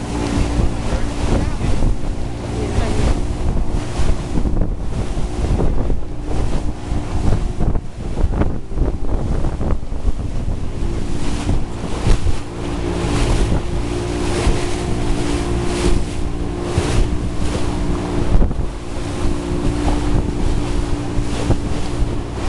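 Open motorboat running at speed: a steady engine drone under heavy wind buffeting the microphone, with water rushing and splashing against the hull in irregular surges.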